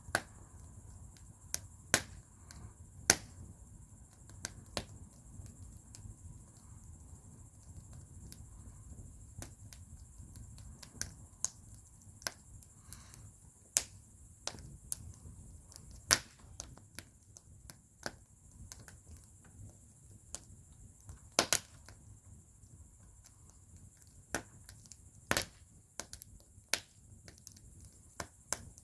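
Wood fire burning in a fire bowl, crackling with sharp, irregular pops, several of them loud, over a faint low rumble.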